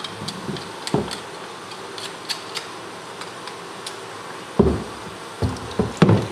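Small tool scraping and picking gristle off a boiled bear skull, with many small sharp clicks against the bone over a hot-water tap running steadily into a sink. A few heavier knocks come about a second in and twice near the end.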